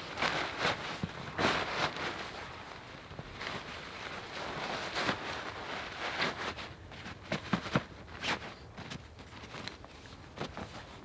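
Rustling of a tarp being gathered and folded by hand, with irregular crackles and a few footsteps on the forest floor.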